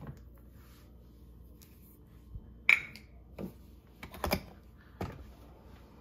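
A few short, sharp plastic clicks and taps from the dishwasher door's detergent dispenser being handled, the loudest a single snap a little under three seconds in.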